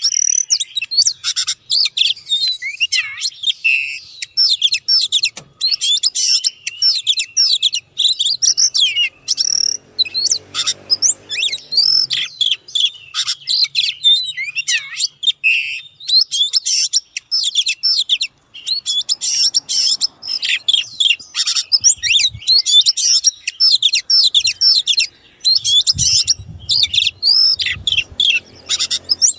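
Oriental magpie-robin singing a fast, unbroken stream of varied high whistles, chirps and trills.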